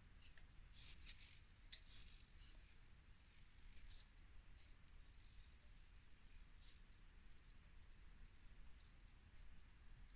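Faint high-pitched clicking and rattling from a 1/24-scale SCX24 micro crawler working its way over a test line, in irregular clusters, the strongest about a second and two seconds in.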